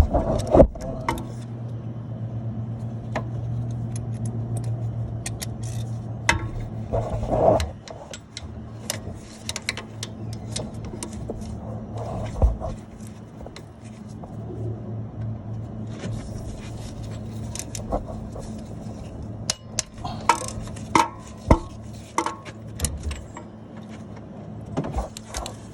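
Metal hand tools clinking, knocking and scraping irregularly while a bolt on the A/C compressor bracket is worked loose, over a steady low hum.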